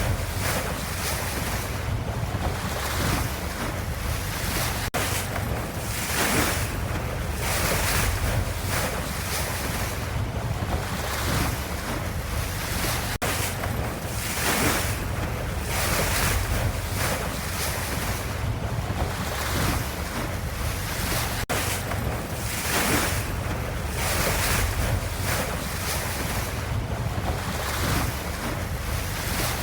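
Ocean waves and surf: a steady rushing hiss over a low rumble, swelling and easing every second or two.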